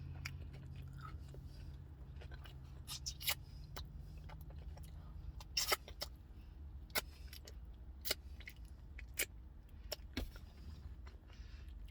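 Eating fries inside a car: small wet clicks and crackles of chewing, a dozen or so scattered irregularly, over a steady low hum of the car cabin.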